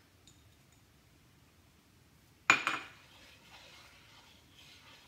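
A metal spoon clinks sharply once against a skillet about two and a half seconds in, ringing briefly. Faint scraping and stirring of thick gravy in the pan follows.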